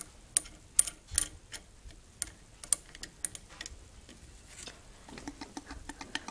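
Irregular sharp metal clicks and taps as a wing nut is turned down by hand to clamp shut the loading door of a homemade shotgun barrel.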